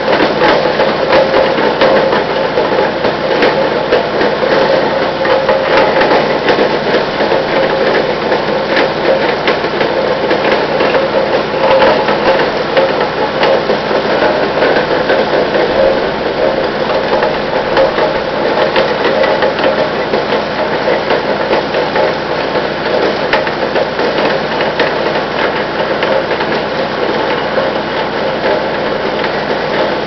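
Brush Master 11 hp chipper-shredder running steadily while branches are fed into its side chute, the blades chipping the wood with a rapid, irregular run of cracks and knocks over the engine's steady note.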